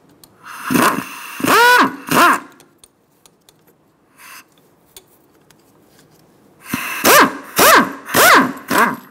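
Power tool on a 14 mm socket spinning the nut off a sway bar link in short trigger bursts, each whirring up and back down in pitch: three bursts early on, then four in quick succession near the end.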